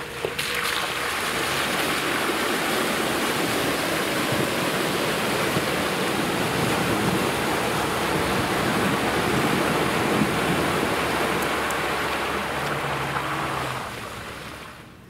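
Muddy pond water rushing and splashing around a Jeep Wrangler Rubicon as it wades through. The wash starts suddenly as it drives in, holds steady, and dies down near the end as it climbs out.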